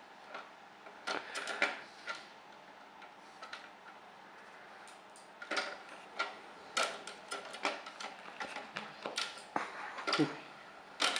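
Irregular plastic clicks and knocks from a desktop CD-ROM drive and its sliding tray as a kitten paws at it, mixed with the drive's tray mechanism clicking as the tray moves. The loudest knocks come about seven seconds in and near the end.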